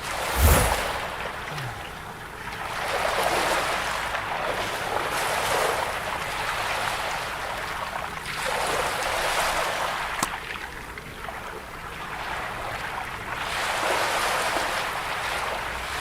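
Ocean surf: waves washing in and drawing back, swelling and fading every few seconds, with a short thump about half a second in.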